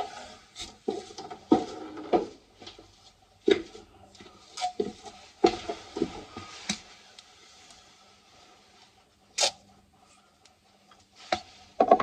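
Irregular clicks, knocks and rustling of hands handling tools and wiring, with several sharp clicks standing out, over a faint steady hum.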